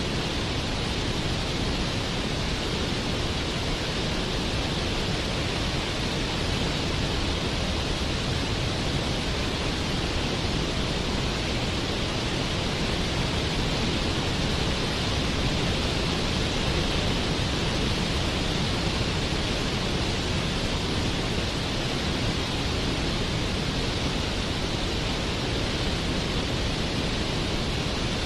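Waterfall: a steady, unbroken rush of falling water, even in level, with a hissy top.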